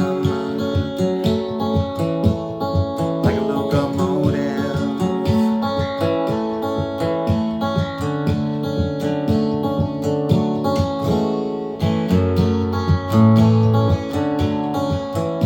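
Acoustic guitar music, plucked and strummed in a quick steady rhythm.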